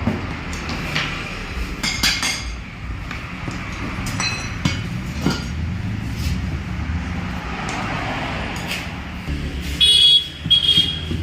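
Metal tools clinking and tapping, with a few ringing metallic clinks about two seconds in and near the end, over a steady low rumble.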